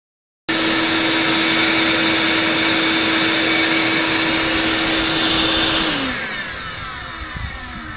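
Shop vacuum running steadily with a high hum, then switched off about six seconds in and winding down, its pitch falling as it fades.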